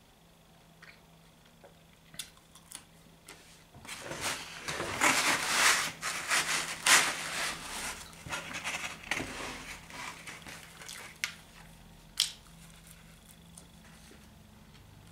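Pizza packaging rustling and crackling for about five seconds while a new slice is picked up, with scattered small clicks before and after.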